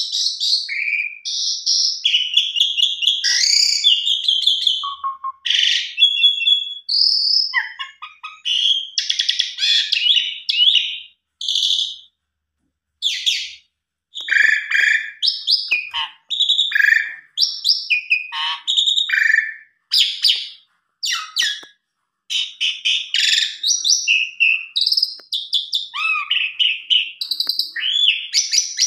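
Asian pied starling (jalak suren) singing a long, fast, varied song of chirps, whistles and rattling notes, broken by two short pauses. It is a full song packed with many different phrases ("full isian").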